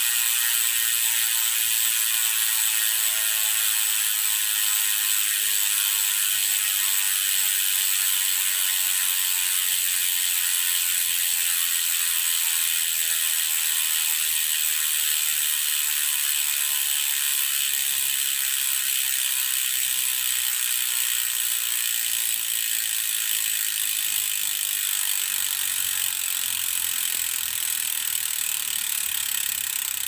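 KT DHF412 rear hub's freehub pawls buzzing as the freely spinning rear wheel coasts, a loud, continuous ratcheting whose pitch slowly falls as the wheel loses speed.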